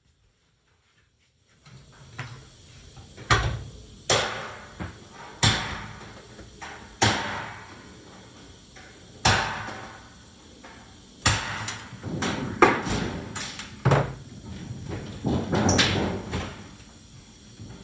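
Sharp metallic knocks and clangs on the school bus's sheet-metal body during rivet and panel removal, one every second or two, each ringing out briefly, with a busier clatter near the end. The knocks start about a second and a half in, after near silence.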